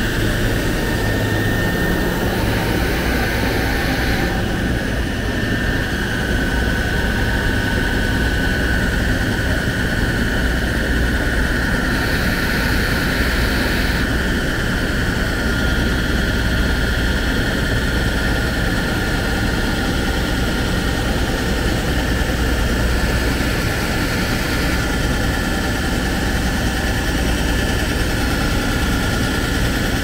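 Wheel repair lathe cutting a wheel: a steady high machine whine over a low rumble, its pitch shifting slightly as the cut goes on.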